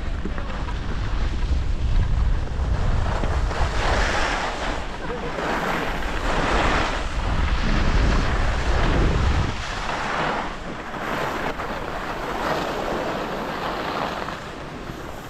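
Heavy wind buffeting an action camera's microphone while skiing downhill, with the hiss of skis on packed, groomed snow swelling with each turn.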